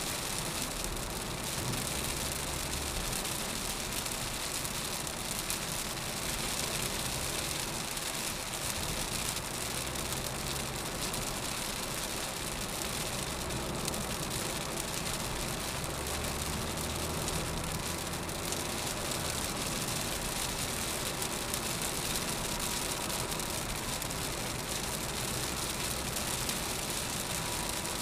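Rain falling on a car's windscreen and body, mixed with steady tyre and road noise from the car driving on a wet highway, heard from inside the cabin. An even hiss over a low rumble that swells and fades.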